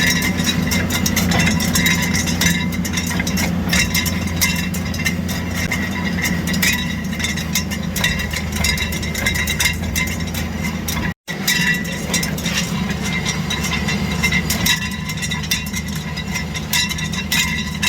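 A running vehicle with a steady drone and a constant irregular clattering and scraping from the rear wheel. The noise comes from parking-brake shoes left disassembled and broken inside the rear rotor's drum hat.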